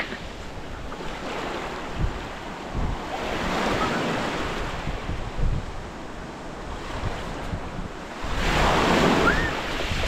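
Small sea waves washing up on a sandy beach, swelling twice, with wind buffeting the microphone.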